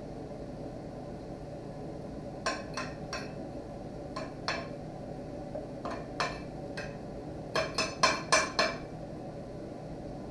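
Metal knife and fork clinking and tapping against the serving dishes while sliced pork tenderloin is moved and plated: scattered sharp clicks, with a quick run of about five near the end. A steady hum runs underneath.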